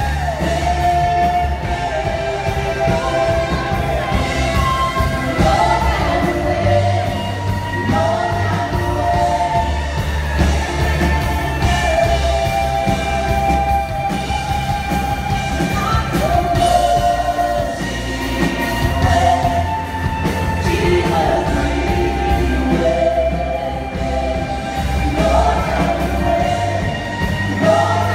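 Live praise band performing: lead singers over electric guitar and keyboard, with a strong, steady bass through the PA.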